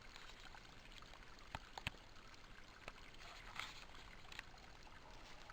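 Faint steady trickle of a creek running over rocks, with a few light clicks and knocks scattered through it.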